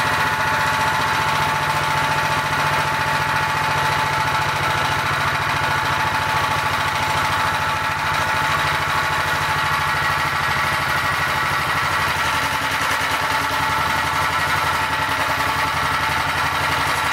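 A 99 cc single-cylinder small engine running steadily on a mix of HHO gas and hexane, fed through a hose straight into the intake with no carburetor and no air.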